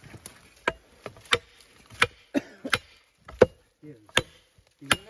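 Hoe blade chopping into soil and roots while digging out a bamboo shoot: about eight sharp blows, roughly one every two-thirds of a second.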